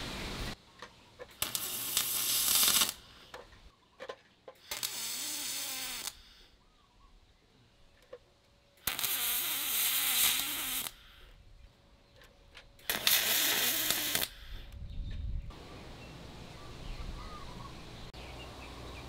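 MIG spool gun welding aluminium: four tack welds, each a hissing, crackling arc of one and a half to two seconds, with quiet pauses between them.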